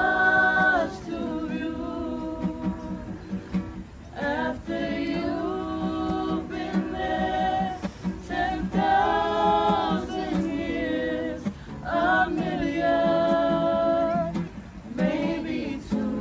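A group of voices singing a slow song together in phrases with long held notes and short breaths between them, over a strummed acoustic guitar.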